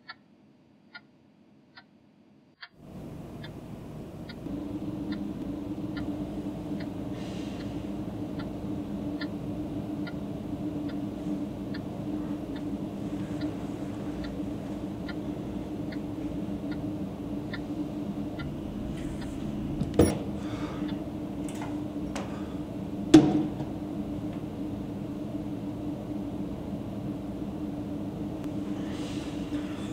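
Analogue alarm clock ticking about once a second in a quiet room, then a low steady drone swells in about three seconds in and holds, with the ticking still faintly audible under it. Two sharp hits, about three seconds apart, stand out late on.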